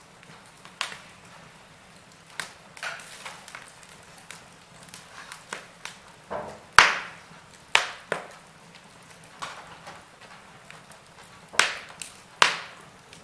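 Wood fire in a fireplace crackling, with irregular sharp pops and snaps over a faint steady hiss; the loudest pops come about halfway through and twice near the end.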